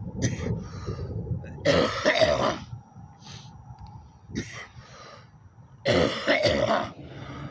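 A man's hacking coughs and throat clearing in several short bouts, the loudest about two seconds in and again about six seconds in.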